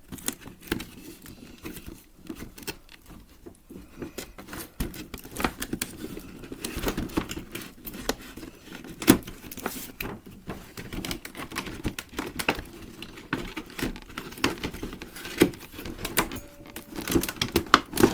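Cardboard statue box being opened and its packaging handled: irregular taps, knocks, scrapes and rustles of cardboard and plastic.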